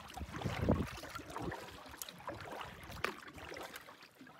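Canoe paddle strokes dipping and pulling through the water, with water lapping at the hull as the canoe glides along.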